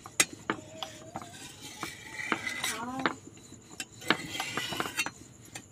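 Cooking utensils clinking and knocking at irregular intervals, with a brief gliding pitched sound near the middle.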